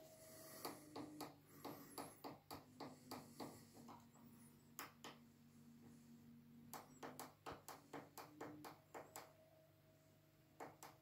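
Small stepper motor driving a turntable by its rim, a faint steady whine whose pitch shifts a few times. Two runs of light, irregular clicks, one in the first few seconds and one just past the middle.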